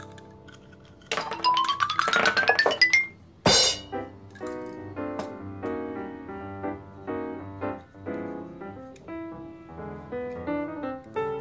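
Background music: a quick rising run of plinked notes, a short crash-like swish about three and a half seconds in, then a light keyboard tune of separate notes.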